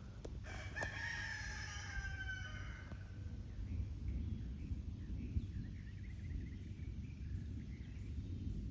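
A rooster crowing once: a single call of about two seconds that slides slightly down in pitch, over a steady low rumble.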